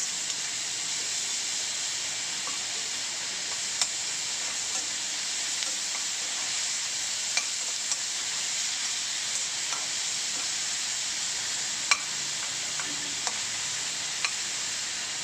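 Chopped shallots and tomato sizzling steadily in hot oil in a kadai while a steel ladle stirs them, scraping and clicking against the pan now and then, as they are sautéed down until the tomato turns to a paste.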